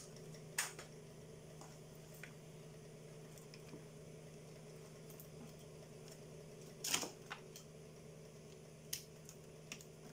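A few faint clicks and knocks from hands handling a TV's circuit board and its wiring, the loudest a short cluster about seven seconds in, over a steady low hum.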